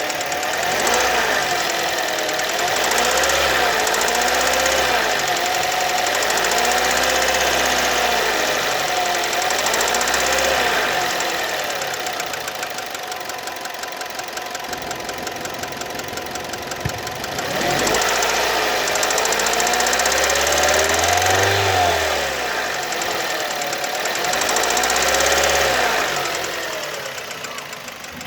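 Warm Kia Ceed engine with a rapid knock, revved up and down several times with a steadier, quieter stretch near idle in the middle. The knock shows only once the engine is hot; the valve clearances have been adjusted and are within tolerance, so the owner rules out the valves.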